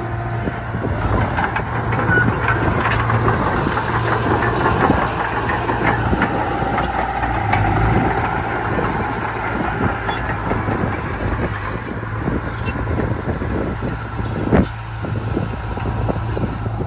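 Heavy diesel earthmoving machinery running steadily under load, with a low, constant engine drone, frequent small metallic clanks, and one sharp knock about fourteen and a half seconds in.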